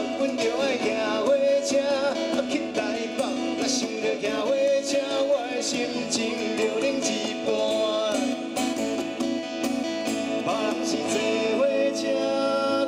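Live acoustic folk-country music: two acoustic guitars strummed in a steady rhythm, with a man singing.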